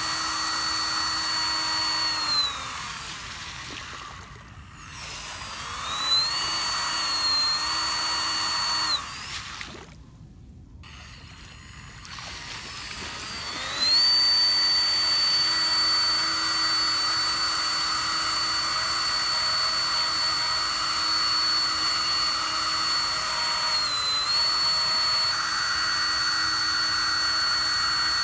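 Small 2212 brushless motor driving a handheld water-jet pump, whining at a steady high pitch over the hiss of the water jet. It winds down about two seconds in and speeds back up, cuts out around nine seconds, then spins up again about halfway and runs steadily, with one brief dip near the end.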